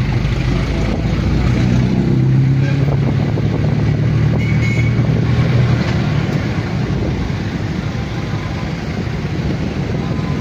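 A motor engine running steadily amid street noise, its low hum growing stronger for a few seconds in the first half.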